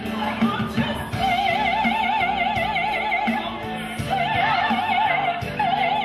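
Music with an operatic singing voice holding three long, high notes with a wide vibrato, over a steady low accompaniment.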